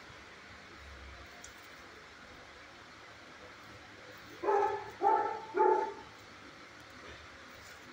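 A dog barking three times in quick succession, a little over halfway through.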